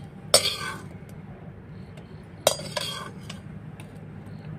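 Metal slotted spoon clanking against a metal kadhai and a steel plate while steamed dumplings are scooped out: three sharp metallic knocks with a short ring, one about a third of a second in and two close together about two and a half seconds in.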